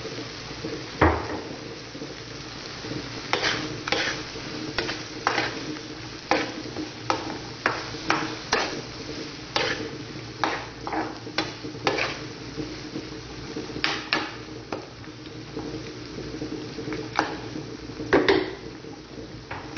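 A metal spatula scrapes and clacks against a frying pan as chopped pork offal in sauce is stirred, with the sauce sizzling steadily underneath. The strokes come irregularly, and the sharpest knocks fall about a second in and again near the end.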